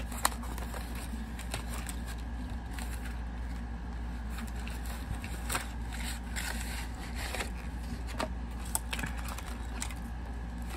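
Packaging being handled by hand: scattered crinkles and small clicks, with one sharp click just after the start, over a steady low hum.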